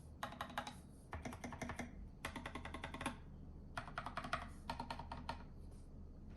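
Typing on an Epomaker GK96S mechanical keyboard fitted with unlubed Holy Panda switches and SA-profile keycaps in a foamed case: quick runs of keystrokes in six short bursts with brief pauses between.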